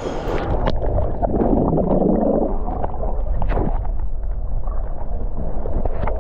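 Pool water sloshing and churning close to the microphone, heard as a muffled low rumble with a few faint clicks.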